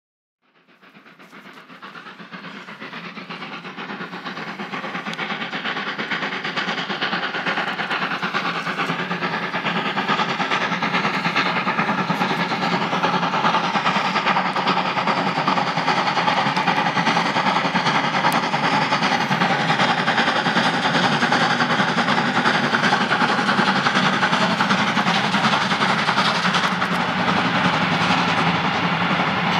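Steam-hauled freight train passing: the locomotive and a long rake of open freight wagons running by. It fades in over the first few seconds, then holds as a steady rolling and rumbling noise with ringing tones.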